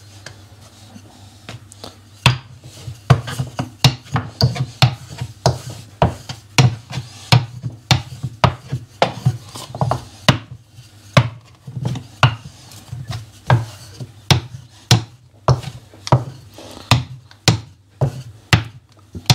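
Wooden rolling pin rolling dough thin on a wooden board: a rhythmic series of knocks, about one to two a second, as the pin is pushed back and forth, with a soft rubbing sound between strokes. The knocks start about two seconds in.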